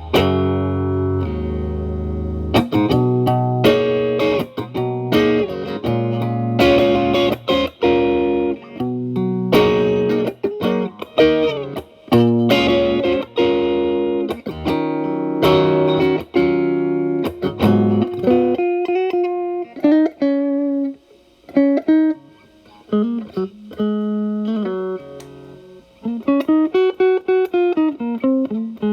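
Telecaster electric guitar played through an E.W.S. Brute Drive (BD-1) distortion pedal set to gain 9, into a Marshall Valvestate amp's clean channel, giving an overdriven tone. Chords and quick runs, then sparser single-note lead lines with string bends and vibrato toward the end.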